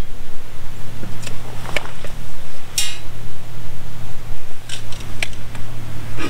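Handling noise of aluminium channel strut on roof-rack crossbars: a few light clicks and taps, and a short rattling zip near three seconds in, typical of a tape measure blade retracting, all over a steady low hum.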